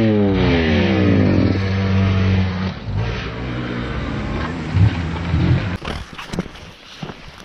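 Yamaha motocross bike engine, its pitch falling over the first second and a half, then running unevenly at varying revs. About six seconds in the engine sound gives way to scattered knocks and rustling, quieter than before.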